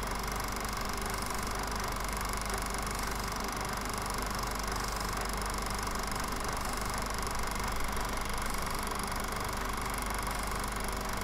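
Steady mechanical hum and hiss of a running film projector, with no speech or music.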